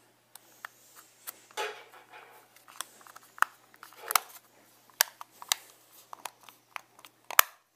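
Sharp plastic clicks and brief scraping as the rear mount of a Canon EF 50mm f/1.8 II lens is pressed and snapped back onto its plastic barrel. The loudest click comes near the end.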